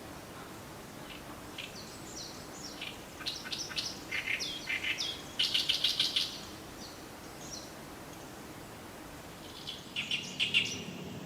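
Oriental reed warbler singing its loud, harsh, chattering song ('gyo-gyo-shi'): a run of quick grating phrases, loudest midway, then a second short bout near the end.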